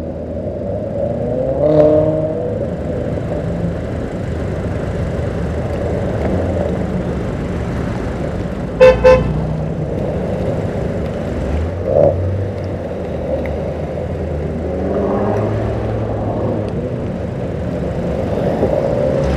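Performance cars driving slowly past with their engines running, several passing close one after another. About nine seconds in, a car horn gives two short toots, the loudest sound here.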